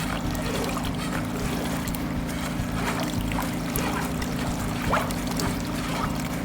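High-pressure drain-jetting machine running steadily, with water trickling and splashing over the top.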